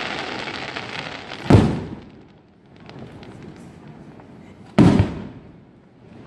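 Aerial fireworks display: a dense crackling of glitter stars fades out over the first second and a half. Then two loud shell bursts go off, about a second and a half in and again near five seconds, with scattered small crackles between them.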